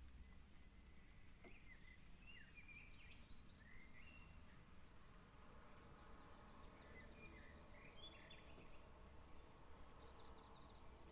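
Faint birdsong: scattered short chirps and quick trills from small birds, over a low steady background rumble.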